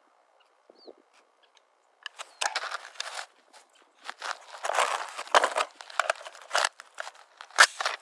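Footsteps crunching over rough ground in an uneven run of steps, starting about two seconds in and getting busier from about halfway.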